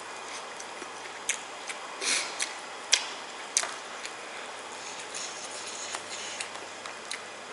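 Scattered small clicks, taps and brief rustles over a steady background hiss, with the sharpest click about three seconds in.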